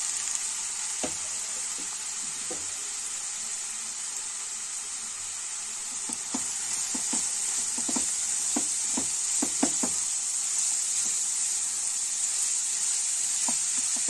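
Grated cauliflower sizzling in oil in a kadhai, a steady hiss, as it is lightly fried so its moisture cooks off. From about six seconds in, a silicone spatula stirs it, adding irregular soft knocks and scrapes against the pan.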